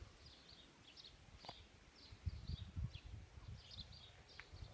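Faint birdsong: short high chirps repeating every half second or so, over an uneven low rumble.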